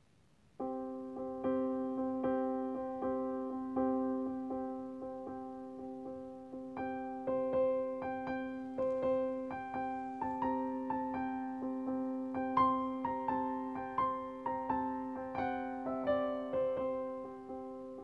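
Background music: solo piano playing a gentle melody over a held chord, starting about half a second in.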